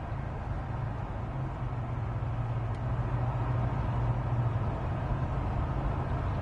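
Steady low mechanical hum, with a faint click about three seconds in.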